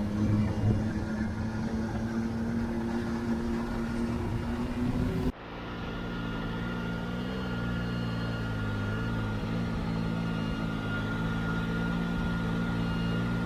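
Can-Am Maverick R side-by-side's engine and drivetrain running under way on the trail. The sound cuts off abruptly about five seconds in and switches to a steadier, slightly wavering engine drone.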